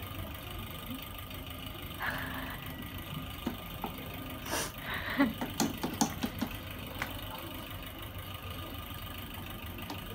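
Slime mixture being stirred in a container: a brief scrape, then a cluster of clicks and knocks from the stirring utensil against the container, over a steady low background hum.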